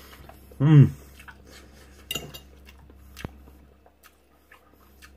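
Knife and fork clinking and scraping on a plate a few times as food is cut and picked up. Just under a second in there is a short, loud voiced cry that rises and falls in pitch, the loudest sound here.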